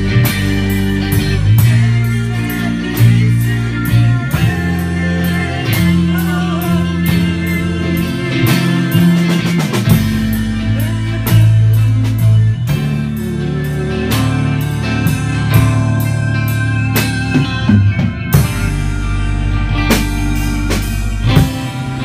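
A rock band playing in rehearsal: guitar and drum kit over held low notes, with a steady beat.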